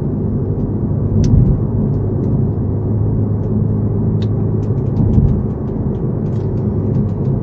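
Car cabin noise while driving: a steady low rumble of tyres and engine, with a few faint light ticks.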